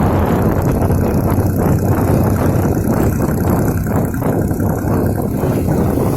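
Motorcycle powered by a car engine running steadily while being ridden, with wind rushing over the microphone.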